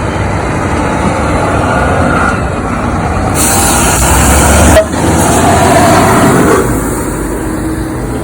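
Mack semi truck driving past: engine and road noise builds to its loudest around the middle and then eases off. About three and a half seconds in comes a burst of hiss that lasts about a second and a half and stops abruptly.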